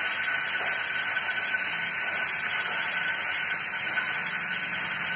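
A steady high hiss with a faint thin tone under it. Nothing else stands out.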